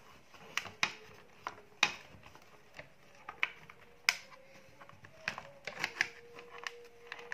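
Irregular light clicks and knocks, roughly two a second, of a thin laser-cut wooden circuit board and its battery holder being handled and turned over in the hands.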